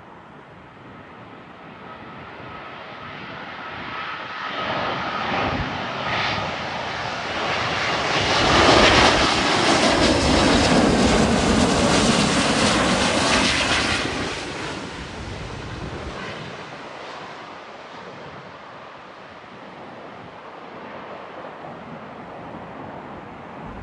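Jet airliner passing close overhead: the engine noise builds over several seconds, is loudest for about six seconds in the middle, then fades away.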